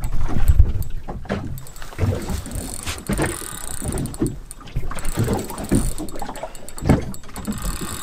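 Wind buffeting the microphone with a low rumble, loudest in the first second, then scattered knocks and clicks of handling on a small boat while a spinning reel is worked against a hooked snapper pulling on the bent rod.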